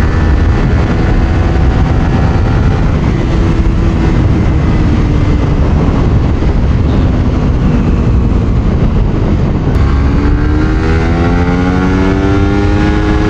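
Suzuki GSX-R150's single-cylinder engine running at road speed under a heavy wind rumble. Its note sags about eight seconds in, then climbs steadily over the last few seconds as the bike accelerates.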